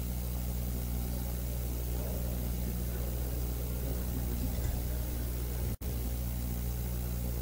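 Steady low mechanical hum of room tone, like a fan, air conditioner or electrical hum, with no speech. The sound cuts out completely for an instant about six seconds in.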